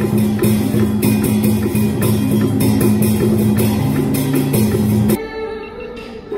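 Loud music of a water puppet show: dense, fast drum and percussion strokes over sustained low notes. About five seconds in it cuts off abruptly to quieter melodic string music.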